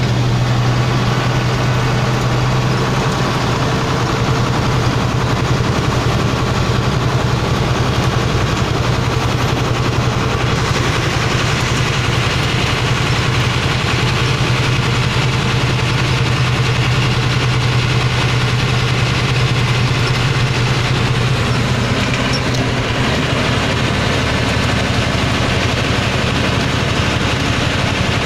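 Truck's diesel engine running steadily under way, heard from inside the cab, a low drone over tyre and road noise; the drone eases slightly about three-quarters of the way through.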